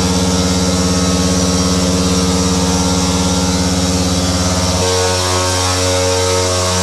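CNC stone-cutting machine running a finger bit through a 2 cm granite slab: a loud, steady drone made of several held tones, which shifts abruptly to a different set of tones about five seconds in.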